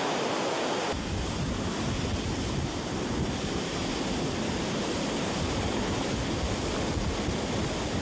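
Floodwater rushing through a dam's gates and spillway: a steady, loud rushing noise that grows deeper about a second in.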